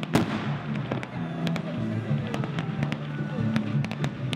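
Fireworks display: aerial fireworks bursting in a string of sharp bangs and crackles, the loudest just after the start. Music plays throughout.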